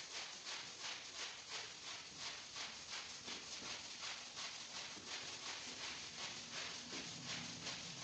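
Scrub brush worked back and forth over a wet, soapy rug, a steady rhythm of short scrubbing strokes about three a second.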